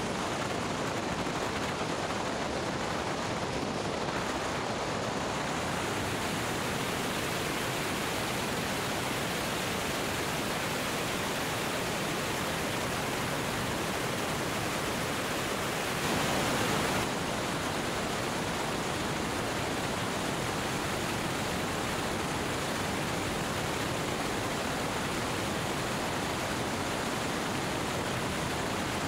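Steady rushing wind noise from fast airflow over a camera microphone mounted under the belly of a Cessna 205 rolling at runway speed, with no distinct engine tone heard above it. It swells briefly about sixteen seconds in.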